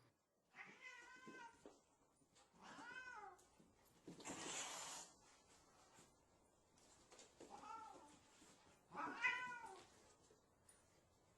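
A cat meowing in four drawn-out calls, each rising and then falling in pitch, with a rough noisy burst about four seconds in.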